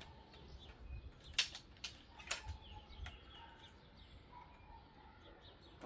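A few sharp plastic clicks from the lever mechanism of a LEGO-brick Winchester 1887 model as it is worked: one about a second and a half in, then a quick cluster shortly after. Faint birds chirp in the background.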